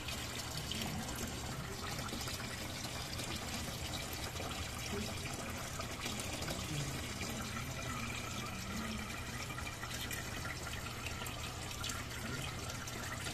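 Steady trickle of running water with a low, even hum underneath.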